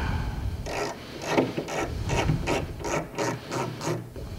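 A butt-hinge screw being loosened in a wooden cabinet door: a quick series of short rasping strokes, about three a second.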